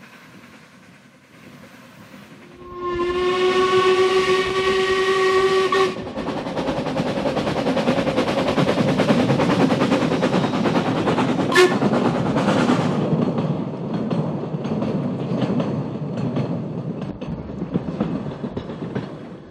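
Narrow-gauge steam locomotive giving one steady whistle blast of about three seconds. It then works past hauling its coaches, its exhaust and the rattle of the carriages on the track going on for several seconds and growing quieter as the train goes by.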